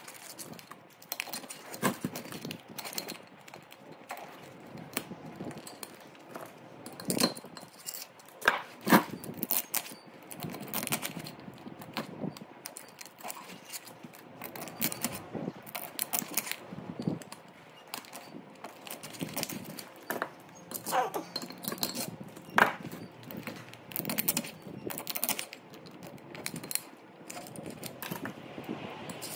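Irregular light metallic clicks, clinks and knocks of hand tools working on a burnt three-phase electric motor's stator while its copper windings are stripped out.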